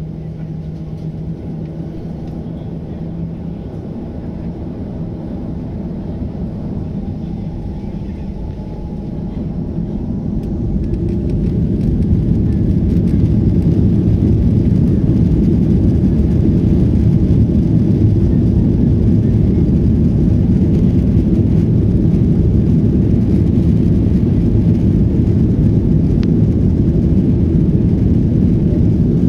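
Boeing 737-800's CFM56-7B jet engines heard from inside the cabin over the wing: a steady hum that grows louder about ten to twelve seconds in and then holds a loud, even rumble as takeoff power is set and the takeoff roll gets under way.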